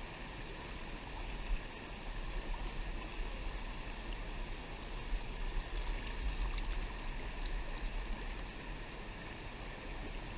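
River water rushing over rocks into a pool: a steady hiss of flowing water, with a low rumble underneath.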